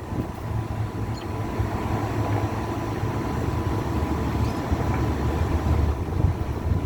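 Sandstorm wind buffeting the microphone: a heavy low rumble that surges and eases, with a faint steady whine underneath.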